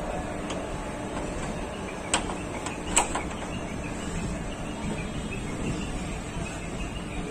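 Indian Railways passenger train rolling slowly into a platform, heard from aboard: a steady running rumble with two sharp metallic clicks about two and three seconds in.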